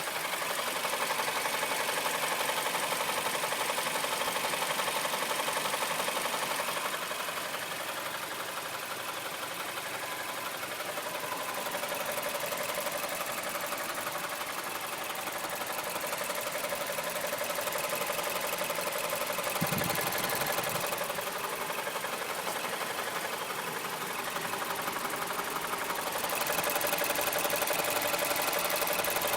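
2008 Mazda CX-7 engine running with a rapid, steady knocking tick, the engine knock the owner is demonstrating. One short low thump about two-thirds of the way through.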